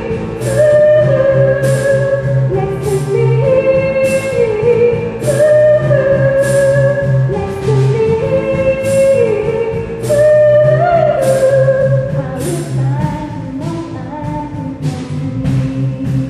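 Choir singing with instrumental accompaniment: held notes and sliding phrases over a steady bass line, with a regular beat of sharp percussive hits that comes faster near the end.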